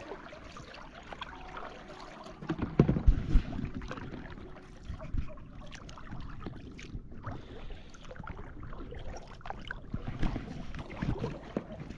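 A small boat being rowed across calm water: irregular knocks of the oars with light water noise, the loudest cluster of knocks about three seconds in.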